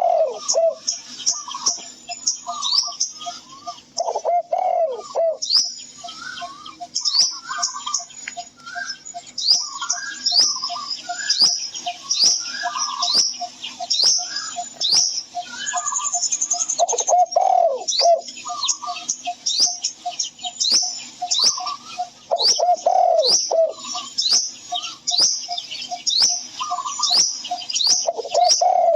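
Many small birds chirping with quick, repeated falling notes, while a dove coos now and then, about five times.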